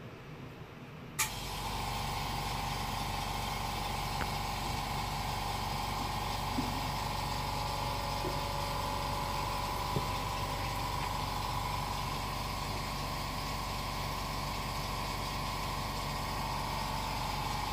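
Hot-air rework station switched on with a click about a second in, then blowing steadily with a whirring hiss and a low mains hum, as the NAND flash chip is heated off an iPhone logic board.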